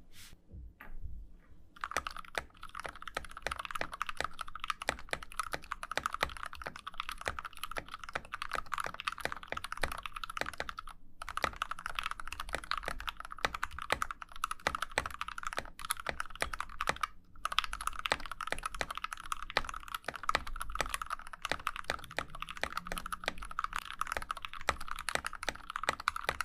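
Typing on a GK64X mechanical keyboard kit with a brass plate: a few single keystrokes, then a fast, dense run of key clicks from about two seconds in, broken twice by brief pauses.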